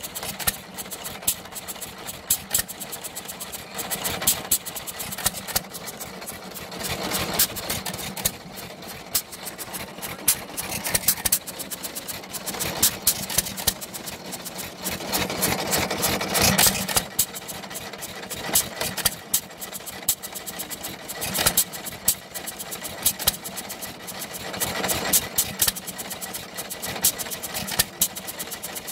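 Antique single-cylinder, hopper-cooled stationary gas engine running with its twin flywheels turning. Sharp exhaust pops come in clusters every few seconds, with lighter clicking between them as it coasts. This firing pattern is typical of a hit-and-miss governed engine.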